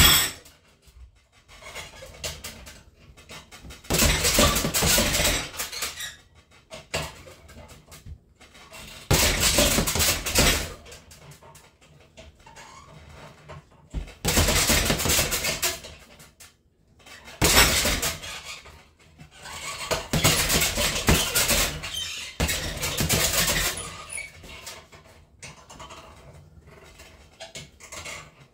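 Boxing gloves punching a hanging heavy bag in flurries of rapid thuds, about seven bursts of one to two seconds each, with quieter pauses between them.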